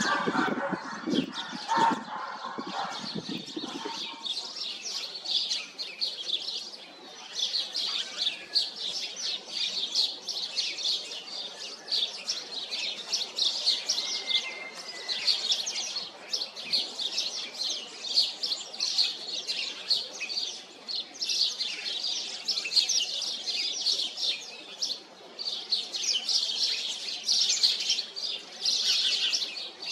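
Birds chirping in a dense, rapid, continuous chatter of high notes. Over the first few seconds a lower, rougher sound runs beneath the chirping.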